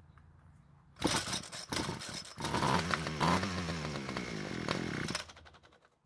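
Homelite string trimmer's small two-stroke engine starting on a test start about a second in and running for about four seconds before it stops suddenly: it starts and runs.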